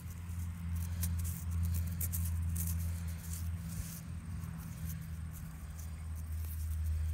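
Dry, scratchy rustling of fingers handling and turning a soil-caked buckle, with crumbs of dirt falling off, over a steady low hum.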